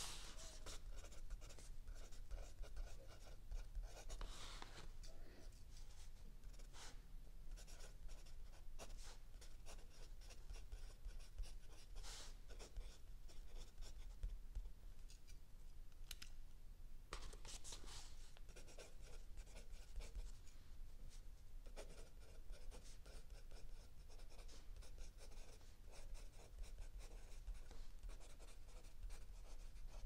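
Mechanical pencil writing on lined notebook paper: a continuous, irregular scratching of strokes and letters, with a faint steady low hum beneath.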